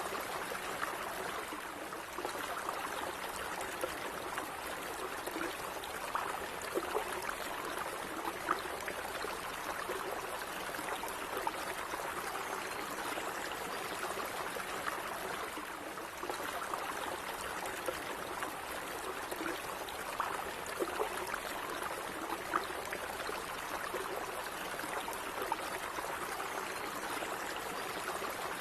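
Small stream of running water flowing and trickling steadily, with little splashes and gurgles.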